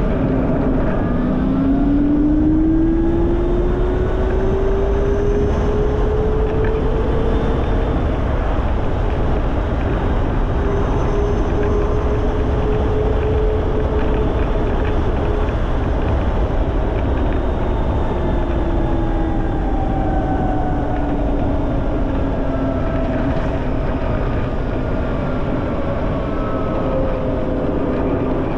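Heavy wind noise on the microphone of a Ryvid Anthem electric motorcycle on the move, with the electric motor's whine rising in pitch as the bike speeds up over the first several seconds. The whine holds steady for a while, then falls again as the bike slows.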